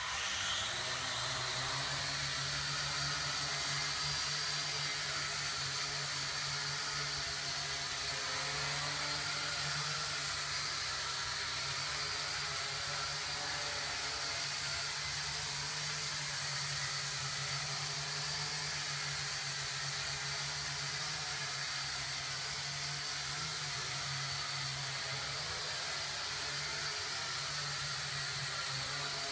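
Small H12C quadcopter's motors and propellers spinning up at once and then running steadily in flight, a constant whirring buzz with a steady high whine over it.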